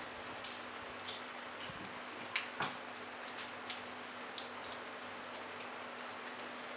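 Light rain falling steadily: an even soft hiss with scattered single drops ticking close by, two of them louder about two and a half seconds in.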